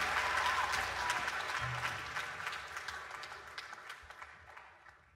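Audience applauding, many dense claps, fading away steadily until it is gone just before the end.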